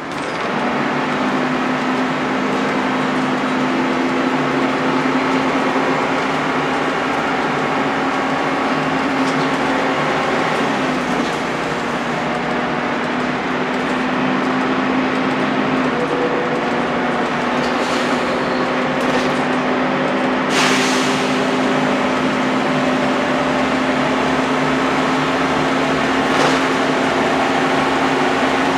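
Volvo B10BLE single-deck bus's rear-mounted diesel engine and driveline heard from inside the saloon while under way: a steady drone with a slowly rising whine from about sixteen seconds in as the bus gathers speed. A brief sharp rattle comes about twenty seconds in.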